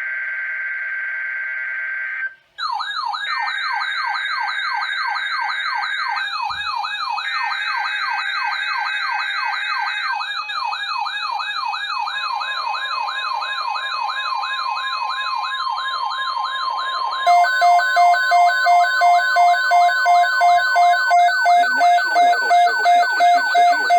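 Emergency Alert System activation on NOAA Weather Radio: three bursts of buzzy digital header tones, then a wavering siren-like alarm with a steady warning tone under it. Near the end, a loud rapid on-off two-tone beeping joins in.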